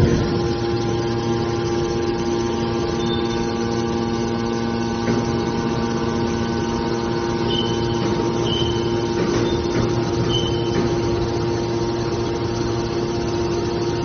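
Hydraulic scrap metal baler running: its motor and hydraulic pump give a steady, even hum made of several constant tones. A click right at the start, and a few brief high squeaks past the middle.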